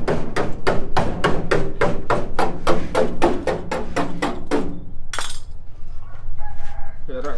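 Rapid hammering on the sheet-metal body of a Mitsubishi L300 pickup during panel-beating repair, about five ringing blows a second, stopping about four and a half seconds in. A short hiss follows.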